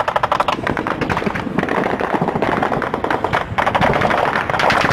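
Sustained automatic gunfire: a rapid, unbroken stream of shots, several weapons firing over one another, aimed up at a helicopter.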